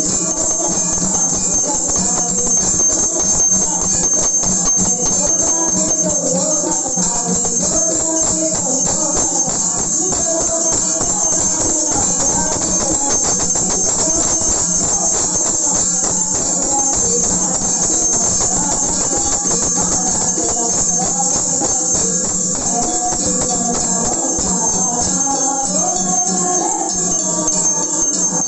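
Hindu aarti devotional music: fast, unbroken metallic jingling like a tambourine or small hand cymbals, over a wavering melody that keeps going steadily throughout.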